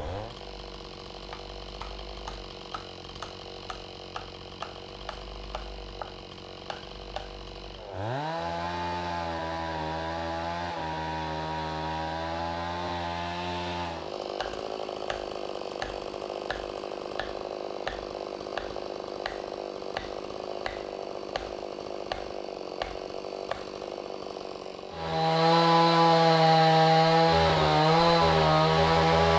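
Stihl chainsaw cutting into a balsam fir trunk, alternating between low-speed running with a regular ticking and full-throttle running; it revs up sharply about eight seconds in and again near the end, its loudest stretch.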